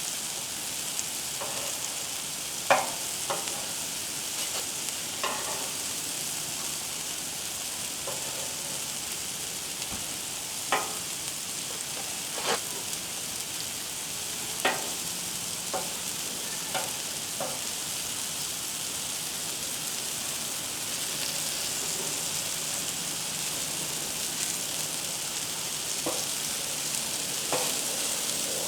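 Sliced Roma tomatoes sizzling on a Blackstone flat-top griddle: a steady frying hiss with scattered sharp pops and clicks.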